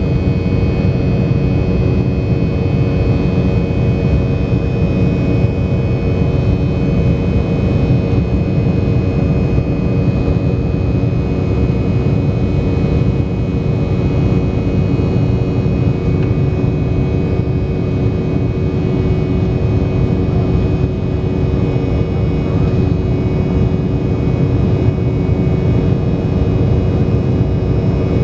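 Steady cabin drone of an Embraer 190 in flight, heard inside the cabin beside the wing: General Electric CF34-10E turbofan engine noise and rushing air, with a few steady whining tones over it.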